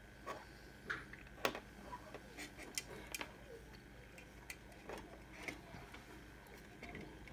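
Irregular light clicks and taps as small plastic electronics parts (an 18650 battery holder and a charger board) and a soldering iron are handled on a desk, over the faint steady hum of a small fume-extractor fan.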